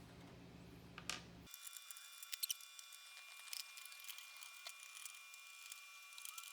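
Faint, scattered small clicks and ticks, a few slightly louder about two and a half seconds in, over a faint steady high whine. This follows an abrupt change in the background sound about a second and a half in.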